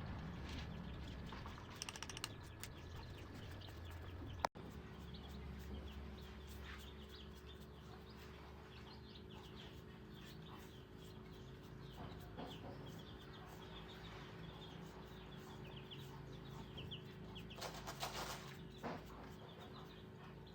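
Faint bird chirps over a low, steady hum, with a short noisy burst near the end.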